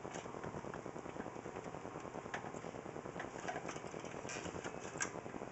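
A screw being driven with a screwdriver through a graphics card's mounting bracket into a computer case, a dense rapid ticking and scraping with a few sharper metal clicks.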